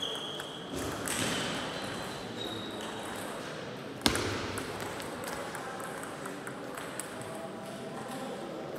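Table tennis rally: the plastic ball clicking off bats and the table, with one loud sharp hit about four seconds in that echoes briefly in the hall, and fainter ball clicks from neighbouring tables.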